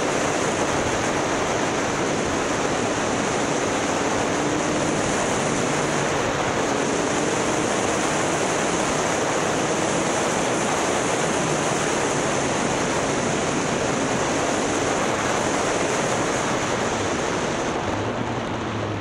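Motorcycle riding with wind rushing hard over the camera's microphone, the engine's drone faint underneath the rush. Near the end the highest part of the hiss drops away and it gets slightly quieter, as the bike eases off.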